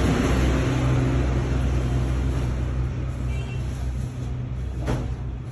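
Low rumble of a motor vehicle running nearby, dying away steadily, with a single sharp click near the end.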